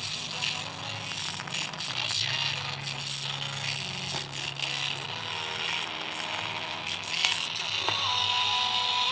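A song played from a phone through a homemade D882 single-transistor amplifier and small speaker, broken by repeated clicks and crackles as the wiring and speaker are handled.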